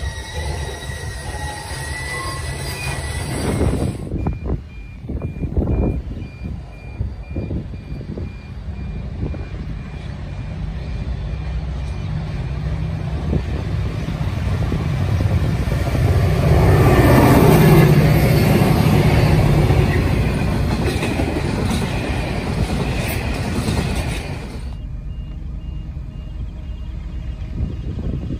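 A train passing: a wavering high wheel squeal at first, then a heavy rumble that swells to its loudest about two-thirds of the way through and slowly fades.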